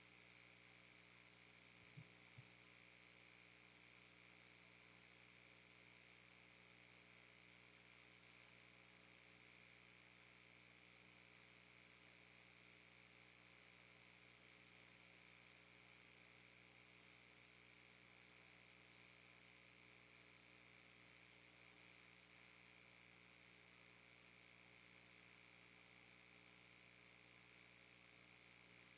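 Near silence: a faint steady electrical hum and hiss, with two faint low knocks about two seconds in.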